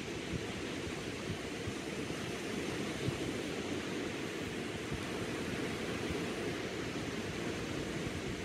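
Small ocean waves breaking and washing up on a sandy beach in a steady wash, with wind rumbling on the microphone.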